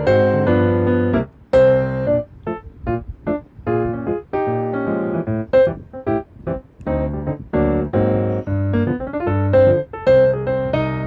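Background music: a gentle piano melody with bass notes underneath.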